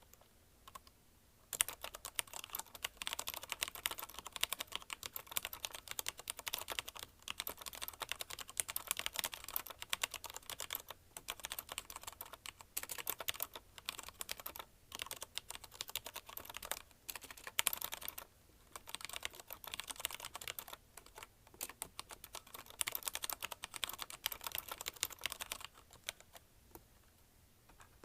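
Fast continuous typing on a CM Storm Quick Fire TK mechanical keyboard with linear Cherry MX Red switches: a dense patter of key presses and keycaps bottoming out. It starts in earnest after a second or two, breaks off briefly a few times, and thins to scattered keystrokes near the end.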